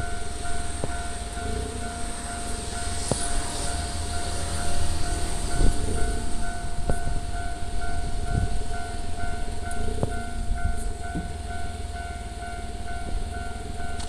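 Japanese railway level-crossing warning bell ringing steadily in a fast, even beat, over a low rumble.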